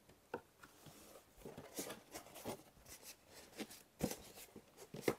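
Styrofoam packing insert and cardboard flaps of an appliance box handled by hand: scattered light rubs and taps, with a couple of sharper knocks near the end.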